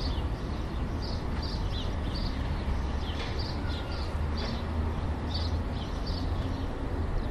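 City ambience: a steady low rumble of distant traffic with small birds chirping now and then over it.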